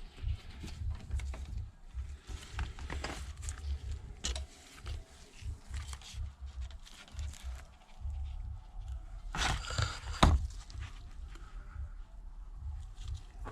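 Small clicks and taps of hand tools and parts being handled during bench repair work on a tablet, over a low rumble, with two louder knocks about nine and a half and ten seconds in.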